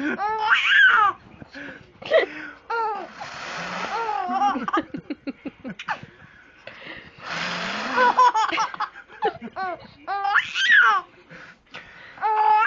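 Young baby laughing in repeated short, high-pitched bursts, with two longer breathy stretches between the laughs.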